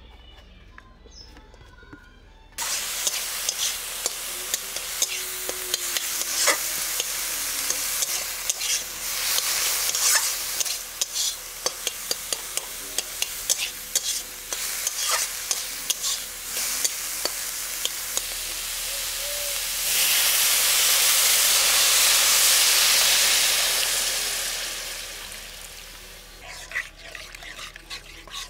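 Minced chicken sizzling in a hot steel kadai while a metal spatula scrapes and taps against the pan, starting suddenly a couple of seconds in. About twenty seconds in, water is added to the hot pan and the sizzle swells to a loud hiss that dies down over a few seconds.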